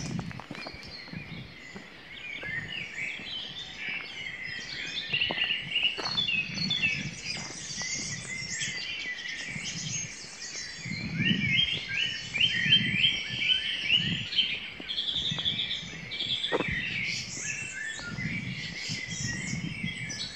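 Dawn chorus: many songbirds singing at once, led by a song thrush singing close by in short repeated phrases, with soft low thumps underneath.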